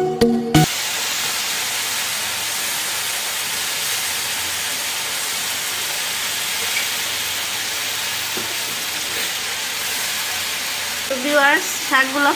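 Water spinach sizzling steadily in a hot pan of oil and spices as it wilts and is turned.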